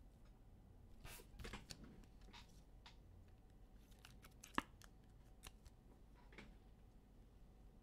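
Near silence with faint, scattered clicks and rustles of something being handled off to one side. The sharpest click comes about four and a half seconds in.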